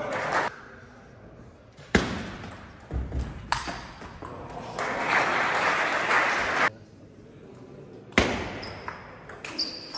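Table tennis ball struck by the bats in a rally: sharp knocks echoing in a large hall, loudest about two seconds in and again near the end. In between, a loud rush of noise lasts nearly two seconds.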